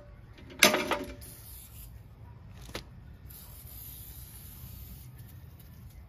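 Aerosol can of PB Blaster penetrating oil spraying onto a tire bead to loosen it from the rim: a loud short burst about half a second in, a brief puff near three seconds, then a steady hiss lasting about two seconds.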